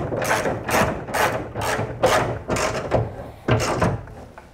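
Socket ratchet clicking in repeated strokes, about two a second, as a window-clamp bolt inside a truck door is tightened down; the strokes stop about four seconds in.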